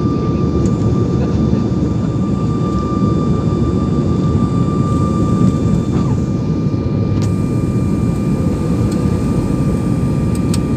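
Steady rumble of a passenger airliner's cabin in flight, from the engines and airflow, heard from inside. A thin steady whine rides over it and stops about six seconds in.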